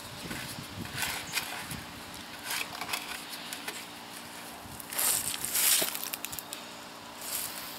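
Handling noises at the splitter: scattered small clicks and knocks, with a louder rustling scrape about five seconds in.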